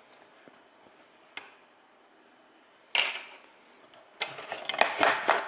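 Hands handling packaging and its contents: faint rustling with a single click, a sharp rustle about three seconds in, then a quick run of clicks and rustles near the end.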